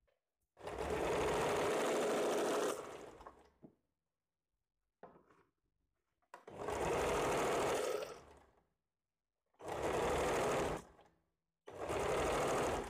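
Sewing machine stitching in four short runs of one to two seconds each, starting and stopping with brief pauses between. Each run trails off as the machine slows.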